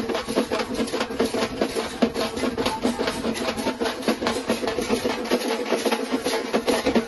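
Street procession drums playing fast and dense, many strokes a second without a break.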